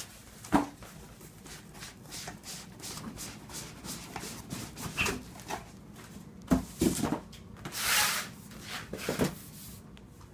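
Hands handling and rubbing a cardboard box: scattered taps and knocks, a few louder knocks about six and a half seconds in, and a brief scraping rustle about eight seconds in.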